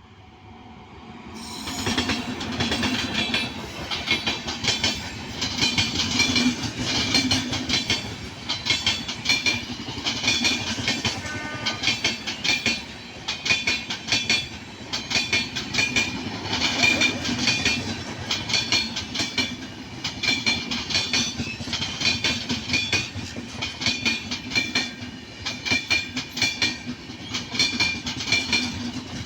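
Indian Railways train running by, its wheels clattering rhythmically over the rail joints. The sound comes in abruptly about a second and a half in and stays loud and steady.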